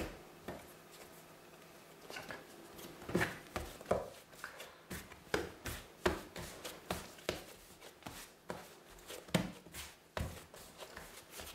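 Bread dough being kneaded and pressed by hand on a floured wooden worktop: a string of irregular soft knocks and slaps against the board, about two a second, starting about two seconds in. A single sharp click comes right at the start.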